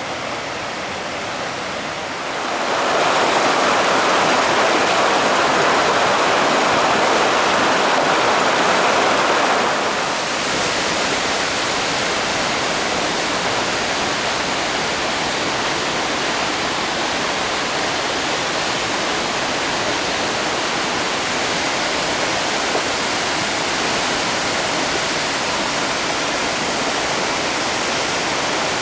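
Mountain stream rushing over rocks: a steady wash of water noise. It grows louder a couple of seconds in, then settles back a little about ten seconds in.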